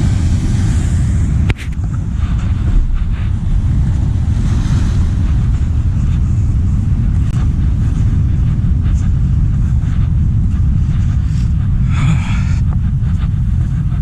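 Wind buffeting the microphone in a steady low rumble, over the wash of ocean surf, with a sharp click about one and a half seconds in.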